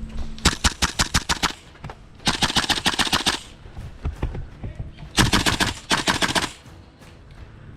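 Full-auto airsoft fire from a Tokyo Marui MK18 gas blowback rifle, in three bursts of rapid sharp cracks, the first about ten shots a second long, the other two longer and denser.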